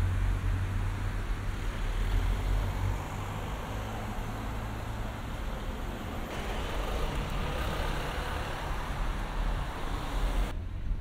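Street traffic: a steady low engine rumble from road vehicles. From about six seconds in there is more hiss from passing traffic, and near the end the higher part of the sound drops away suddenly.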